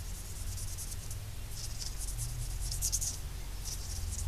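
Fine-grit wet sandpaper rubbing on a metal brake caliper piston, polishing off surface rust: quick, soft scratching strokes in several runs. A low steady hum sits underneath.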